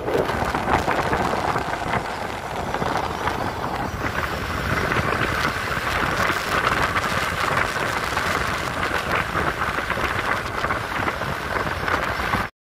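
Wind buffeting the microphone over the steady engine and road noise of a motorcycle riding along a road. The noise cuts off suddenly at the very end.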